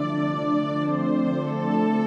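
Soft, slow background music with long held notes.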